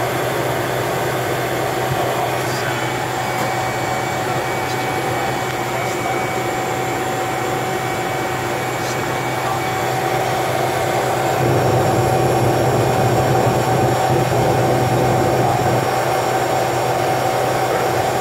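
GE H80 turboprop engine of a DHC-3 Turbine Otter floatplane running steadily as the plane taxis on the water, heard from inside the cockpit, with a steady hum and a high whine over it. About eleven seconds in it grows louder and fuller.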